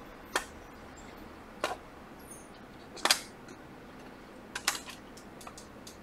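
Sharp clicks and light knocks of an iPad Pro's detached glass display panel being handled and lifted off the tablet frame: four separate taps, the loudest about three seconds in, the last a quick double.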